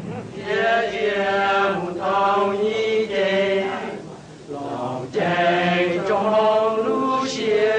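A voice chanting in long, held notes, phrase after phrase, with a short break about four seconds in.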